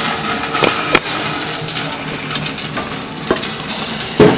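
Metal cooking pot and colander being handled while getting ready to drain boiled pasta: a few knocks and clatters, the loudest near the end, over a steady hiss.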